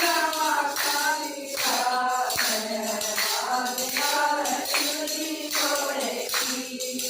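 A Haryanvi devotional bhajan sung in short phrases, with tambourine jingling along.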